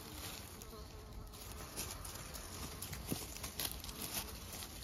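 Month-old puppies' paws pattering and rustling over dry pine needles and leaf litter, with a few sharper crackles of twigs and leaves.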